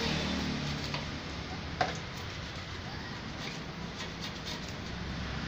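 Scattered light clicks and taps of a metal paint scraper working against a steel gate, with one sharper knock a little under two seconds in.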